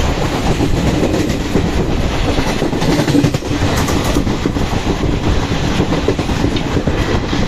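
Express passenger train running at speed, heard from inside a coach: a steady loud rumble with the wheels clattering rapidly over rail joints.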